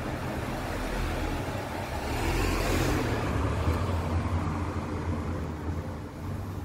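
Motor vehicle passing close by: a low engine hum and road noise that swell about two to three seconds in, then fade.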